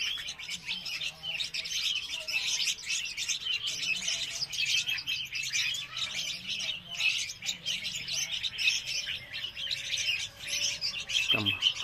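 Young red-whiskered bulbuls chirping nonstop in a cage, a dense chatter of many short high calls overlapping: the begging calls of chicks gaping for food.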